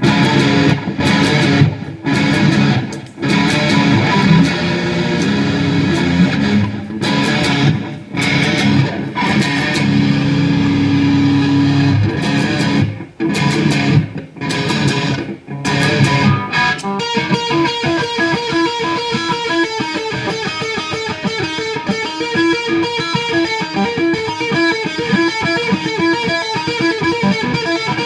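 Electric guitar played through a NUX Mighty 15SE amplifier with effects: chords with short breaks for the first half, then a fast, even run of rapidly repeated notes to the end.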